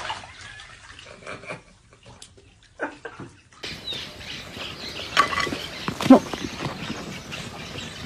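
Birds chirping and calling outdoors among a flock, with two short, loud cries about five and six seconds in. Before that there are a few faint clicks and knocks.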